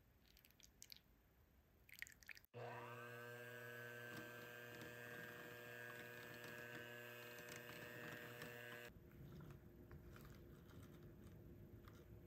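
A small electric motor spins up, with its pitch rising for a moment, then runs faintly at a steady pitch for about six seconds before cutting off. A few light clicks come before it.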